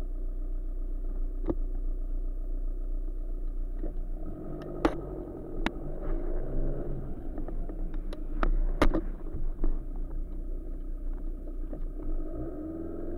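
Tuned Seat Ibiza TDI turbodiesel engine idling, with the engine speed wavering slightly, heard from inside the cabin. A few sharp clicks come through over it.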